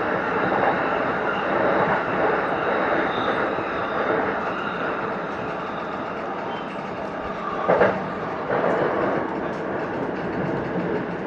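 Keihin-Tohoku Line E233-series electric train running and slowing into a station, a steady rumble of wheels and running gear that eases off. About three-quarters of the way in comes a short sharp sound, followed by a few softer ones.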